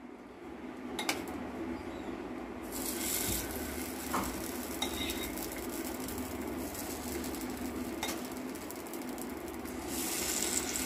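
Spoonfuls of chana dal and vegetable batter dropped into the hot, oiled cavities of an appe (paniyaram) pan, sizzling in the oil, with a few sharp clicks of the metal spoon against the pan. The sizzle sets in about three seconds in and grows near the end as more cavities are filled.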